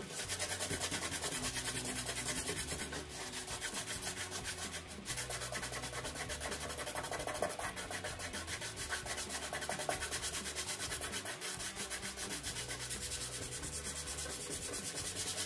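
Sandpaper rubbed by hand over the flat back of an old radio's case in quick back-and-forth strokes, with brief pauses about three and five seconds in.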